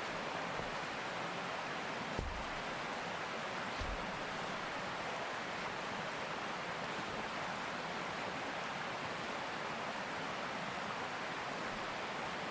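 Mountain stream running with a gentle, steady rush of water, with two faint low knocks about two and four seconds in.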